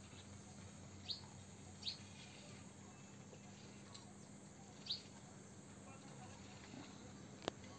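Three short, high bird chirps over a faint background hiss, about a second in, near two seconds and near five seconds, with one sharp click near the end.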